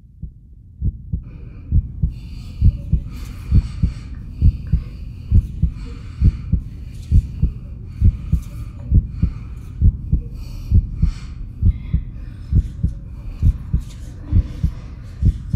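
Heartbeat: paired low thumps (lub-dub) repeating steadily at about one beat a second, starting abruptly out of silence, with faint muffled sounds above it.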